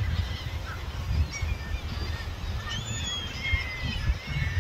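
Wind buffeting the microphone in a low, uneven rumble, with scattered bird calls above it, one of them falling in pitch about three seconds in.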